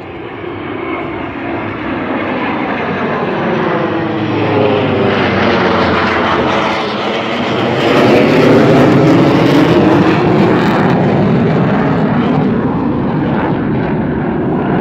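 Two F/A-18 jets and a propeller warbird flying over in formation: jet noise builds steadily, is loudest about eight seconds in with a sweeping, phasing sound as the planes pass overhead, then stays loud.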